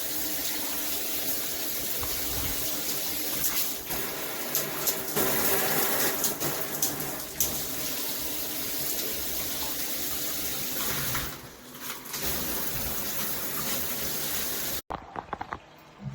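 Water spraying steadily from a 2-in-1 handheld and rain shower head, an even hiss of spray. There are a few short louder spots between about four and seven seconds in, and the sound cuts off suddenly near the end.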